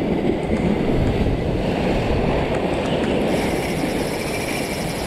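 Ocean surf surging and washing against a rock ledge, with wind on the microphone. About three seconds in a high, thin whine from the spinning reel joins it as line is wound in against a hooked fish.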